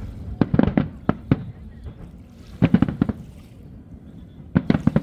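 Fireworks going off in three quick clusters of sharp bangs and crackles, about two seconds apart, over a low rumble.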